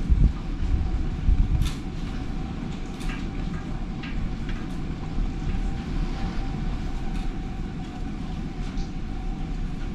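Tornado winds heard from inside a house as a steady, deep, train-like rumble, with scattered ticks and knocks of rain and flying debris striking the window and walls, a few sharper knocks in the first two seconds.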